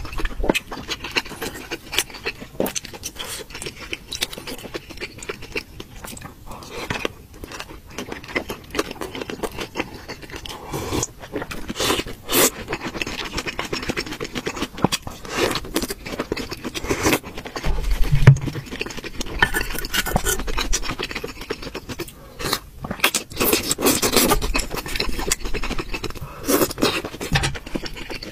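Close-up eating sounds: soup being sipped and slurped, with a spoon scraping and clinking against a ceramic bowl at irregular moments.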